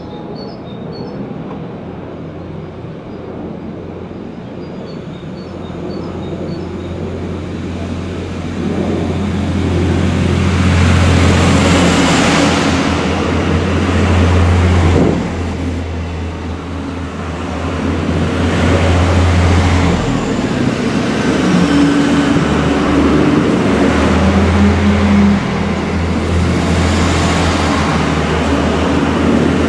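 Irish Rail 29000 class diesel multiple unit arriving at a station: a steady low drone from its underfloor diesel engines and the rumble of its wheels on the rails, growing louder after the first several seconds as the cars pass close by.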